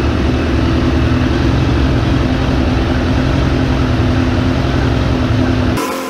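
Suzuki GSF600 Bandit's inline-four engine idling steadily while propane is played around the carburettor intake boots to find a vacuum leak, which the owner suspects at the boots. The sound drops abruptly near the end.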